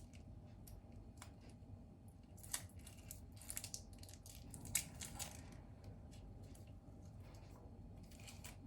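Faint kitchen handling noises: scattered light clicks and rustles, clustered in the middle, over a low steady background hum.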